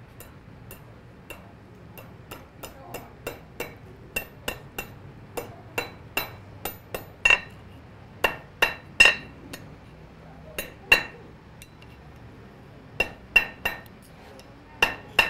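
Blacksmith's hand hammer striking red-hot iron on a steel anvil, bending a bar into a hook: a run of ringing strikes, light taps at first, then heavier blows from about halfway, with a short pause of a couple of seconds near the two-thirds mark.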